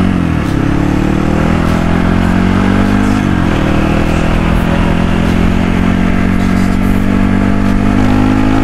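Trail motorcycle's engine under the rider, pitch climbing as it accelerates, then dropping sharply at a gear change about three seconds in and holding steady at cruising speed, with wind noise underneath.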